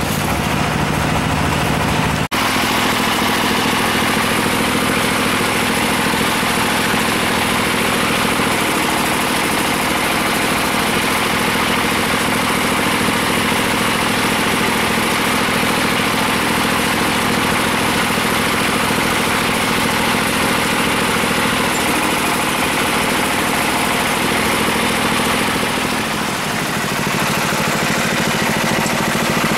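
An engine running steadily, with a brief break about two seconds in and small shifts in its pitch later on.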